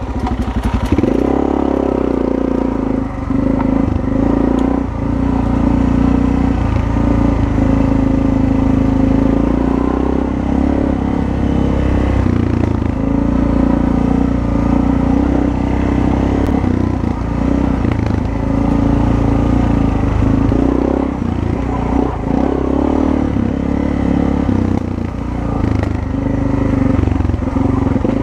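Suzuki four-stroke single-cylinder dual-sport motorcycle engine running while the bike is ridden along a sandy dirt trail, its note rising and dipping with the throttle. Clatter and scraping from the bike going over the rough ground run underneath.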